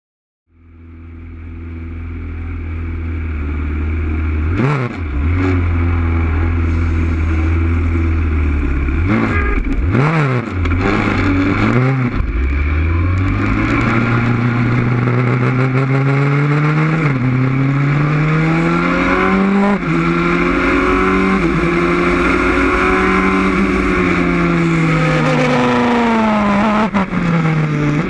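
Wolf GB08 sports racer's engine, heard onboard: idling steadily as the sound fades in, then sharply blipped a few times. The car pulls away with the revs climbing and stepping down at several gear changes, and the revs fall and rise again near the end.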